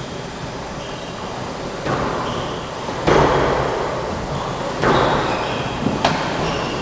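Squash rally: racket hits and the ball striking the walls, about three seconds in, near five seconds and twice in quick succession around six seconds, each echoing in the enclosed court. Short squeaks from shoes on the wooden floor and a steady background hum are also heard.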